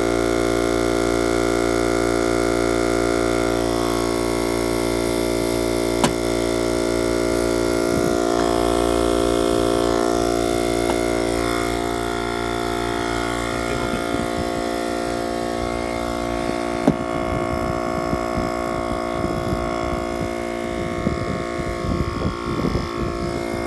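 Husky portable tire inflator running steadily, its compressor droning with a pitched hum as it pumps air into a yard cart tire, with a couple of sharp clicks.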